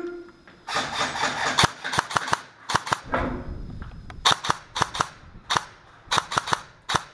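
Airsoft guns firing in short clusters of sharp shots, several volleys spread through the few seconds.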